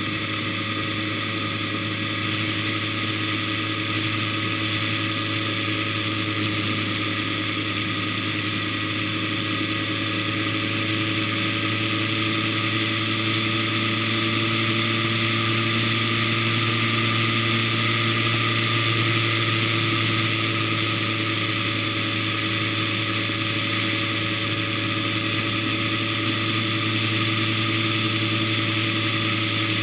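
Vehicle engine running at a steady cruise, heard as a constant hum with a few held tones, mixed with hissing wind and road noise on a mounted camera. The hiss grows louder about two seconds in.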